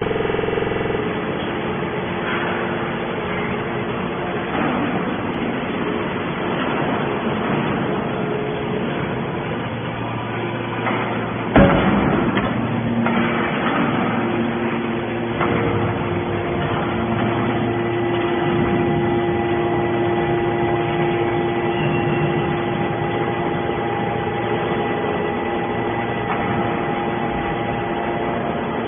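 Horizontal hydraulic scrap-metal baler running: a steady mechanical hum from its hydraulic drive, with held tones that grow steadier in the second half. A single loud metallic bang comes a little before halfway.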